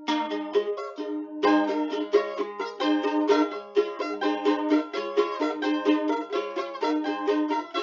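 Background music: quick plucked-string notes, like a ukulele or mandolin.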